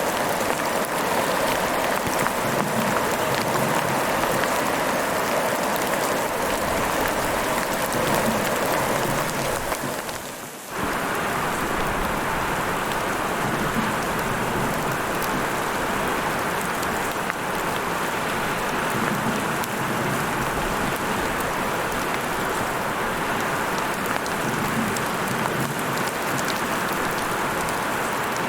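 Heavy rain falling steadily, a dense hiss full of fine drop patter. The level dips briefly about ten seconds in and then comes straight back.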